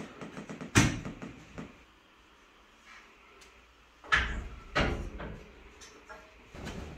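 Steel box spring frame knocking against metal: a sharp knock about a second in with a few light rattles after it, then two heavier clunks around four and five seconds in as the assembled frame is set down onto the bed frame's rails.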